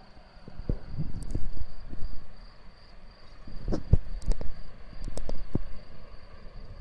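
Crickets singing, a steady high trill, under irregular low thumps and rumbles that are the loudest sound, with a few short sharp clicks.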